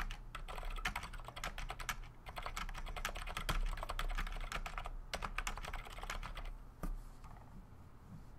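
Typing on a Cherry G80-1800 mechanical keyboard with 55g Gateron Black linear switches and GMK keycaps: a rapid, steady run of keystrokes. It thins out about two-thirds of the way through, with one last distinct keystroke near the end.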